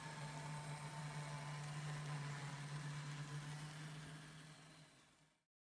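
Steady low hum with a faint hiss from an N scale model train running on DC power, with no sound decoder, fading out about five seconds in.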